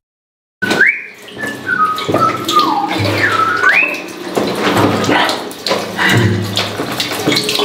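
Urine streams splashing into urinals, a steady watery hiss. Over it, a whistled tune of gliding notes runs through the first few seconds.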